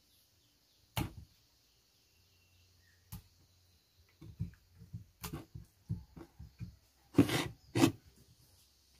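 Raw beef and a knife being handled on a wooden plank: a sharp knock about a second in, another near three seconds, then a run of soft thuds and taps from about four seconds, with the loudest knocks near the end.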